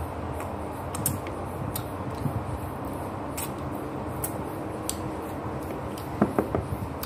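Eating sounds of a person eating fried fish with the fingers: scattered wet lip smacks and finger-sucking clicks over a steady background hiss, with a quick run of louder squeaky smacks about six seconds in.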